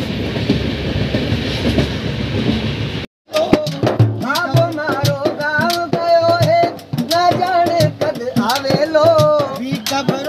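For about three seconds, the steady running rumble of a moving passenger train coach. Then, after an abrupt cut, a man sings a melody in long wavering notes while beating a hand-struck drum in a steady rhythm.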